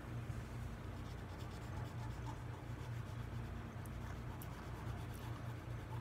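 Black watercolor pencil scratching on watercolor paper as shadows are shaded in, with a few light ticks, over a steady low hum.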